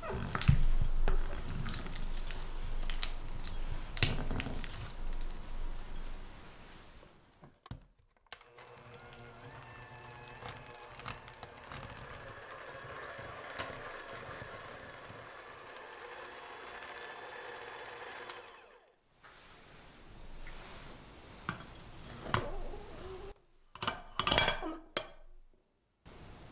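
A silicone spatula scraping and knocking against a glass mixing bowl of softened butter, then an electric hand mixer running steadily for about ten seconds as it beats the butter. Near the end come a few sharp clinks and taps.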